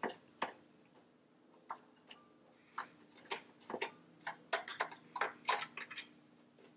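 Small cleaning brush flicking and scrubbing over a serger's metal stitch plate and looper parts to clear out lint: a series of short, irregular scratchy ticks, coming closer together in the second half.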